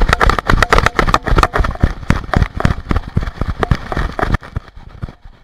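Rapid, irregular thumps and rubbing from a camera strapped to a moving dog: its fur and body knocking and brushing against the microphone. The noise stops sharply about four seconds in, leaving only faint ticks.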